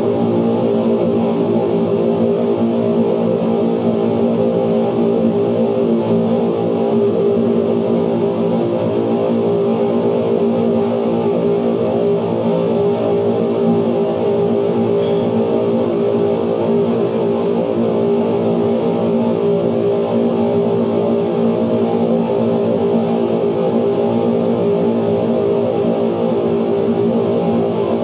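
Amplified 16mm film magnetic soundtracks, altered by light sensors on the projection screen, making a dense, steady noise drone of many held low and middle tones.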